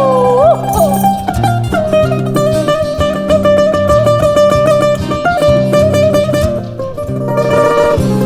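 Bouzouki playing a quickly picked melody over acoustic guitar chords.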